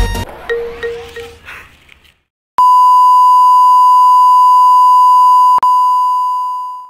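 A loud, steady electronic beep tone, one unchanging high pitch held for about four seconds with a brief click-like break near the end. It follows the tail of electronic music fading out and a short gap of silence.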